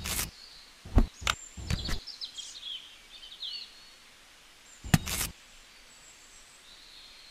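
A few sharp knocks and clicks as small plastic model parts and wires are handled, with faint bird chirps in the background.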